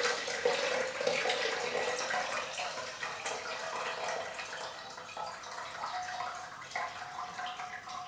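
Lemonade pouring from a stainless steel saucepan through a mesh sieve into a plastic jug, a continuous splashing stream that grows quieter. The pitch of the filling rises a little as the jug fills.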